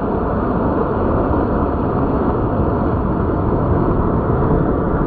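Ocean surf breaking and washing in the shallows of a beach, a steady rushing noise with no let-up.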